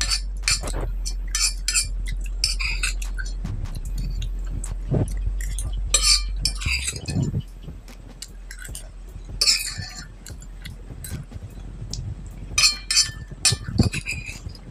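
A metal spoon clinking and scraping against a glass plate in many short, sharp strikes, between mouthfuls of soupy rice being eaten. A low background hum stops about halfway through.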